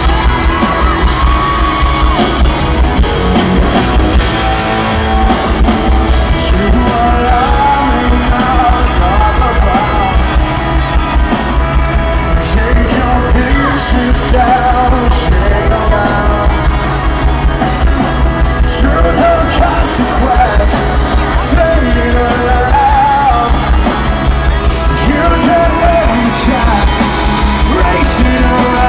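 Live rock band with a male lead singer and electric guitar, recorded from the audience; the recording has a booming, distorted low end.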